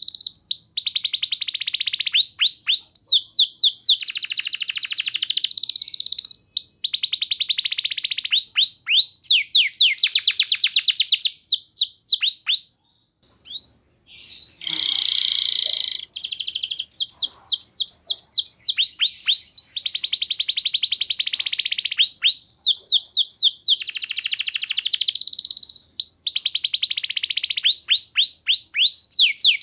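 Domestic canary singing a long song of fast, high trills and rolls, each phrase a rapid run of repeated notes. It drops out briefly about halfway through, then resumes with a harsher, rasping phrase before the clear trills return.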